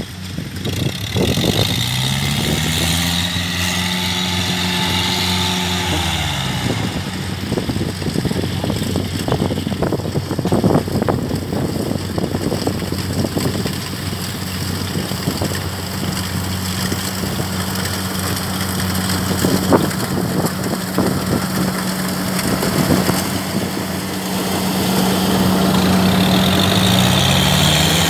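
Farm tractor engine running steadily. Its pitch rises, holds and drops back about a second in, and starts rising again near the end, with scattered clanks and knocks in between.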